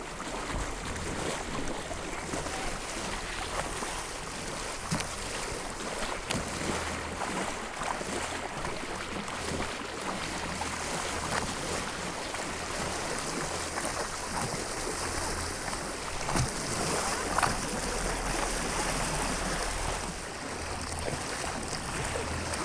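Steady rush of moving water and wind, with a low hum underneath and a few faint clicks.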